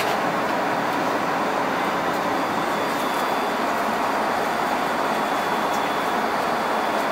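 Steady cabin noise of an Airbus A330 airliner in flight: an even, unbroken rush of airflow and engine noise heard from inside the passenger cabin.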